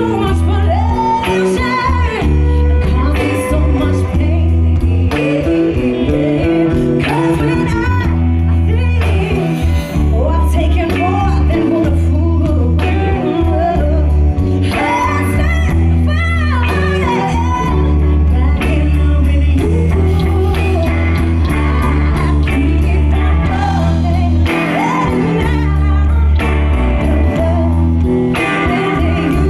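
Live band playing: a woman sings lead over electric guitar, a heavy bass line and drums.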